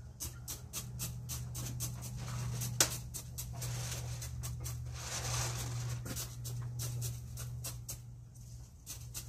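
Bamboo chopstick poking and scraping bonsai soil down around roots in a pot: a fast run of small scratchy clicks, one sharper tap about three seconds in, and denser scraping in the middle, over a steady low hum.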